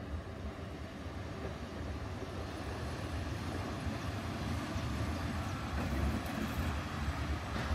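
ČD class 242 electric locomotive passing at close range, its wheels rumbling on the rails. The rumble grows steadily louder as it draws level.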